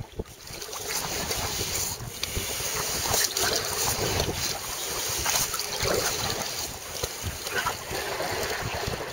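Wind buffeting the microphone over water splashing and lapping around a sea kayak as it is paddled, with irregular splashes; louder from about a second in.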